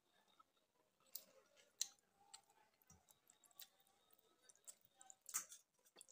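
Faint, scattered soft clicks and wet squishes of a hand mixing water-soaked rice (panta bhat) in a steel bowl, with the sharpest click a little after five seconds in.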